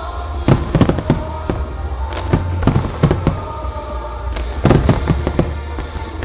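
Fireworks grand finale: many shells and ground mines bursting in quick succession, about two or three sharp bangs a second over a constant low rumble.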